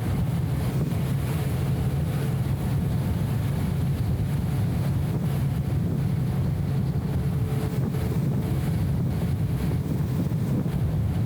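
BMW E34 M5 Touring driving at a steady pace: a constant low, muffled drone of engine and road noise, dulled by the camera's anti-wind filter, with no change in revs.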